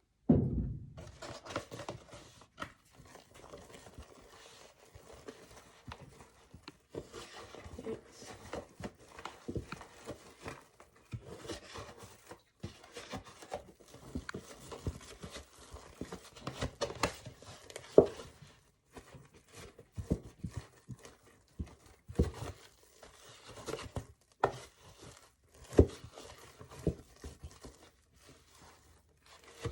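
Spatula stirring and scraping a sticky melted-marshmallow mixture in a bowl as flour is worked in, with irregular scrapes and knocks against the bowl.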